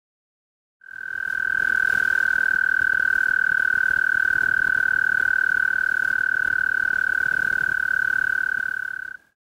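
Male American toad giving its long trill: one steady pitch with a fast, even pulse, lasting about eight seconds. It swells over the first second and stops abruptly.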